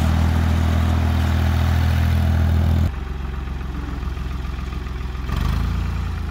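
Engine of an old wheel loader running steadily while it carries gravel; it becomes quieter about three seconds in and keeps running.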